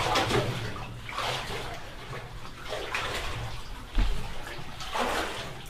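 Water sloshing and splashing in repeated surges as a person wades through a flooded cave pool, with a dull low thump about four seconds in.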